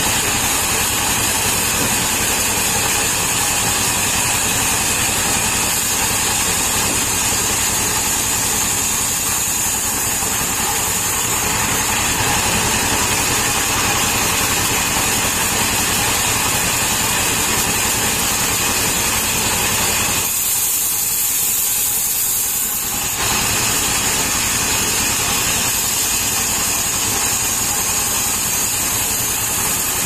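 Sawmill's stationary engine running steadily, driving the large circular saw as a palm-tree log is ripped lengthwise: a constant mechanical drone with a steady high hiss over it.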